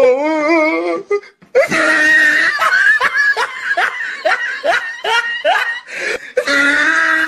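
Hearty laughter: a wavering voice in the first second, a brief break, then a long run of fast repeated 'ha' pulses, about three a second.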